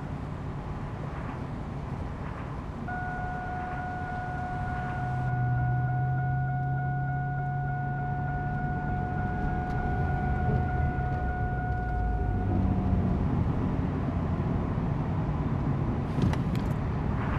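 Car running at highway speed with steady engine and road noise, overlaid by a continuous high warning tone from about three seconds in until about twelve seconds in: a forward collision warning alert. After the tone stops the noise grows louder, with a few sharp clicks near the end.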